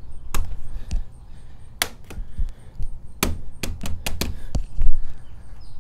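Soft-faced mallet tapping a vinyl Screen Tight cap down onto its screen track to seat it. A string of sharp taps at uneven spacing, a few spread out at first, then several in quick succession a little past the middle.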